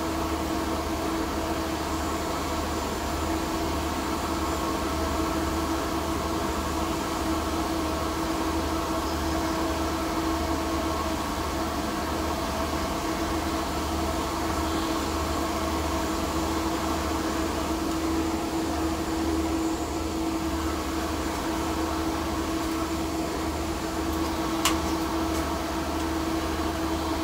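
Steady drone of work-site machinery: a constant hum with a pulsing low rumble that does not change throughout. One sharp click near the end.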